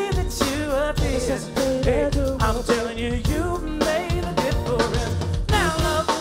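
Male R&B vocal group singing live over a backing band with a drum kit.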